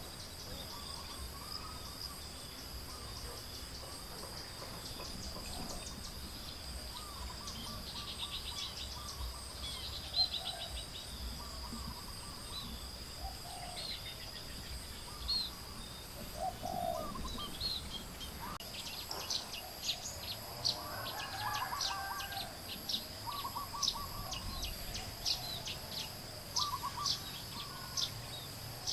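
Birds chirping over a steady, high-pitched insect drone. The chirps are sparse at first and come thick and fast about two-thirds of the way in.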